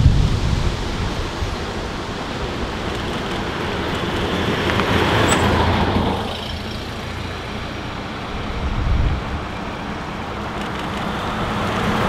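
Veteran cars driving past one after another, engine and tyre noise rising and falling as each goes by. A car passing close at the start fades away. The noise builds again toward the end as an early-1960s Cadillac with its V8 approaches.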